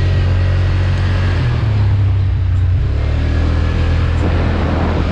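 Off-road vehicle engine running steadily under way, a low drone whose pitch steps up slightly about a second and a half in.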